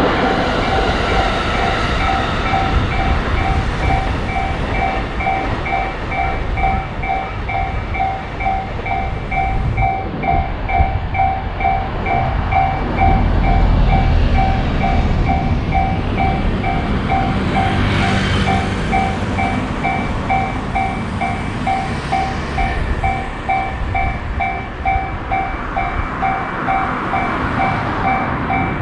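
Japanese railroad crossing's electronic warning bell ringing in a fast, even ding-ding rhythm while a train passes with a low rumble. A brief louder rush comes about eighteen seconds in.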